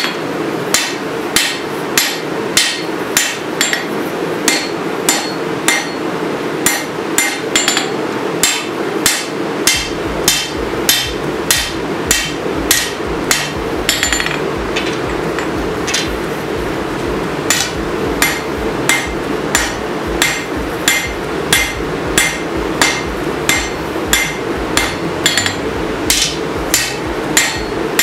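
Hand hammer striking hot 5160 steel on an anvil while forging a sword blade, blows falling at an even rhythm of about two a second, over a steady hum.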